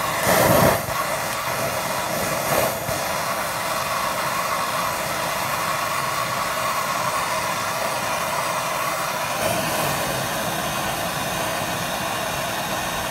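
Hand-held gas torch burning with a steady, loud roaring hiss as its flame heats the steam boiler's coil fittings to free them for removal. The flame flares louder for a moment near the start and again briefly a couple of seconds in.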